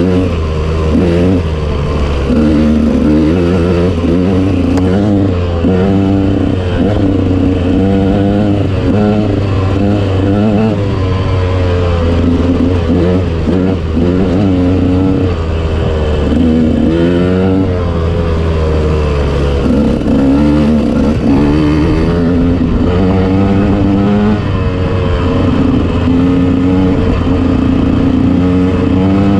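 KTM off-road motorcycle engine running under changing throttle, its revs rising and falling again and again as it rides.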